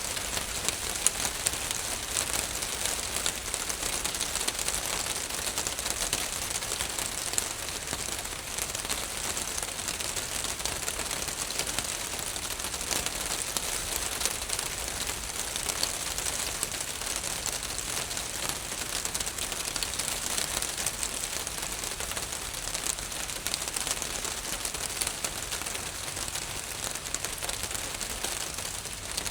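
Rain falling steadily on a roof: a dense, even hiss of drops with many fine ticks of individual drops striking.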